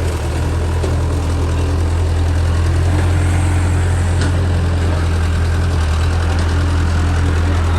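Mini excavator's diesel engine running steadily at an unchanging speed.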